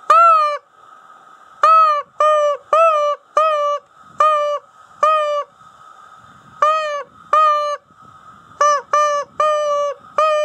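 Primos Still Cottontail mouth call blown in a string of short, whining rabbit-distress squeals, a dozen or so, each swooping up at the start and then held briefly. They come in groups of two or three with short pauses, quickening into a faster run near the end.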